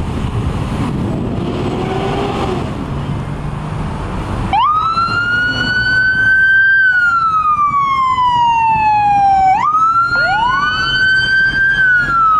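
Fire engine pulling out with its engine running, then its siren starting about four and a half seconds in: a wail that climbs, slowly falls, and snaps back up to climb again. A second rising siren tone joins about ten seconds in.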